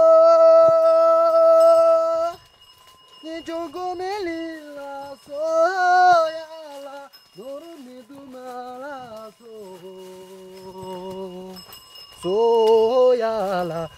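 A solo voice singing a slow, unaccompanied melody, with a long held note at the start and wavering, ornamented phrases after it, broken by short pauses.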